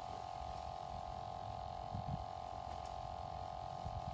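Wind rumbling unevenly on the microphone, under a steady unbroken hum.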